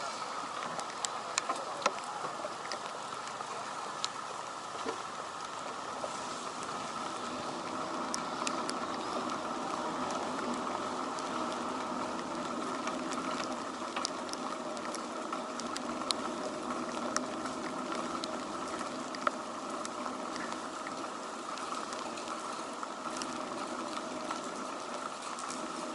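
Typhoon rain pattering, with scattered drops ticking sharply, over a steady background hum.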